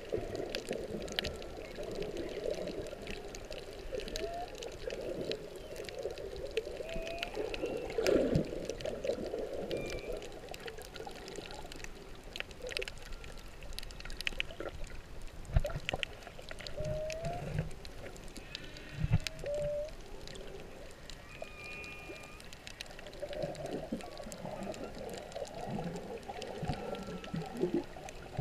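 Humpback whale song recorded underwater: short upswept moans and higher squeaks recurring every few seconds over a steady wash of water noise, with scattered sharp clicks.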